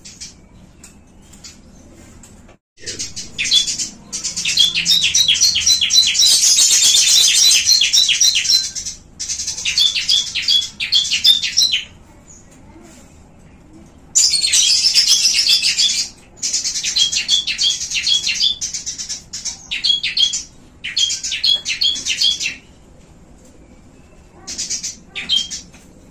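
Caged small birds (Eurasian tree sparrows, bar-winged prinias and a lovebird) chirping and trilling in long, rapid bursts of high notes. The bursts break off and resume several times, with a short final burst near the end.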